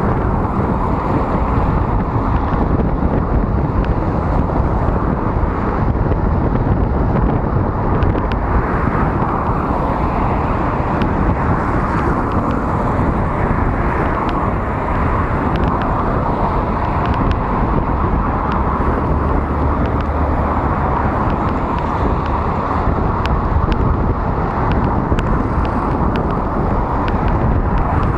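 Steady rush of wind over the microphone of a moving road bicycle, mixed with tyre hiss on a wet road and traffic running alongside. Scattered faint ticks come through from a few seconds in.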